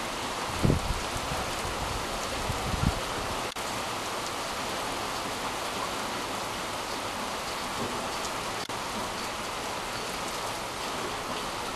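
Heavy rain falling steadily, an even hiss with no break. A couple of brief low thumps come in the first three seconds.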